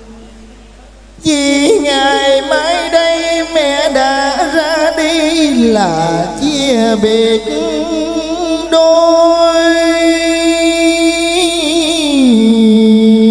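A man singing a slow Vietnamese farewell song for a dead mother into a microphone through a PA, with heavy vibrato and sliding ornaments. The voice comes in about a second in over a steady held note, slides down low in the middle, and near the end settles back into the held note.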